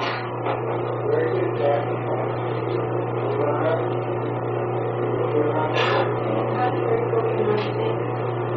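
Steady low electrical hum under a hiss of room noise, with a few short sharp thumps: one right at the start and another around six seconds in.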